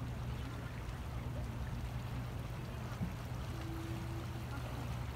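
The swollen Rhine in flood, its fast current flowing past the flood wall as a steady low rush. A short, faint steady tone sounds about three and a half seconds in.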